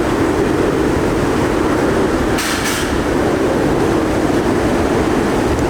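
Typhoon-force wind blowing in a steady, dense roar, with a short burst of higher hiss about halfway through.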